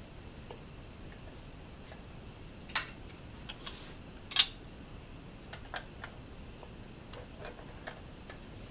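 Metal clinks and clicks of small machine parts and hand tools being handled on shaper gearing: a sharp double clink nearly three seconds in, a louder single clink about a second and a half later, then scattered lighter clicks near the end.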